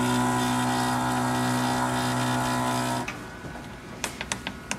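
Anajet mp5i direct-to-garment printer running with a steady mechanical hum that cuts off suddenly about three seconds in, followed by a few light clicks as buttons on its control panel are pressed.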